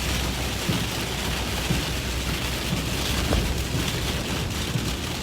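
Heavy rain and strong wind gusts of a supercell's rear-flank downdraft beating on a vehicle, heard from inside: a steady hiss of rain over a low rumble.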